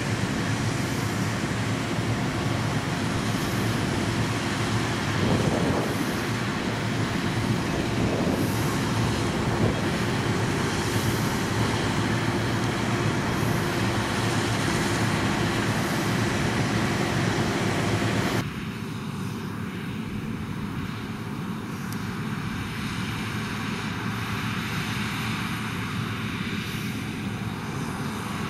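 Claas Lexion combine harvester running steadily as it harvests oats, its engine and threshing gear making a continuous mechanical din. About two-thirds of the way through, the sound drops suddenly and becomes quieter and duller.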